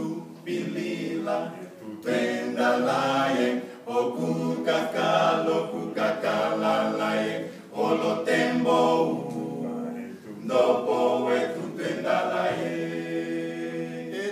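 A male a cappella group of five singing a gospel song in harmony, unaccompanied, in an African language, in phrases a few seconds long with short pauses for breath between them.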